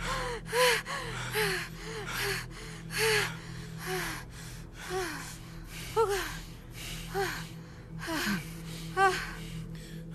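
A woman breathing hard in short, gasping breaths, many of them ending in a brief high whimper, about one to two a second and spacing out later on, over a low steady hum.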